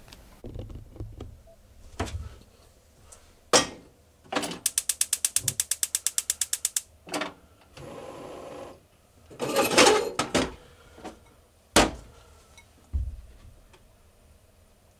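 Gas stove burner igniter clicking rapidly, about nine clicks a second for two seconds, as the burner is lit under a pot. Around it come sharp knocks and a clatter of the metal pot being handled on the grate.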